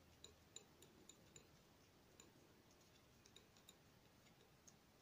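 Near silence with faint, irregularly spaced light clicks of a metal palette knife working oil paint on paper.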